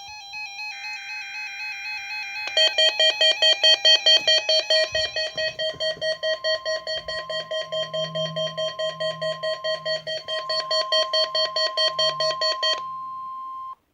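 NOAA Weather Radio alert during a weekly warning-alarm test. It opens with the warbling, modem-like SAME data burst. About two and a half seconds in, the receiver's rapid beeping alarm starts, about five beeps a second, over the broadcast's steady warning-alarm tone. The tone carries on alone for about a second after the beeping stops, then cuts off near the end.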